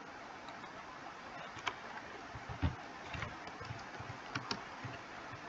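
Irregular clicks and soft low knocks of typing on a computer keyboard over a steady background hiss.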